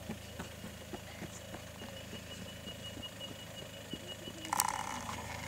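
Toyota Prado 150 four-wheel drive crawling slowly over a rutted dirt track, its engine a steady low hum with faint clicks of dirt and stones under the tyres. A brief louder burst comes a little before the end.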